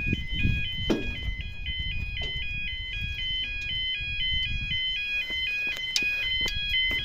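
Yodalarm YA30 level crossing alarms sounding a continuous warble that steps back and forth between high and low tones, the warning that the barriers are lowering for an approaching train.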